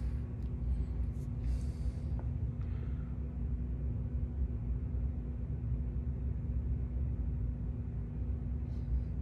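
Steady low rumble of room background noise with a faint constant hum, and no distinct event.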